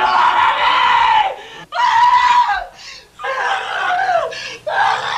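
A psychotic young man screaming in distress while staff hold him down on his bed: four long, loud, high cries of about a second each, with short breaks between them.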